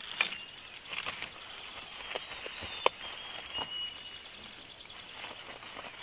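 Bald eagle moving sticks and fluff in its nest right beside the microphone: scattered clicks and rustles, the sharpest about three seconds in. Small birds give short high chirps in the background, with a fast high trill through the second half.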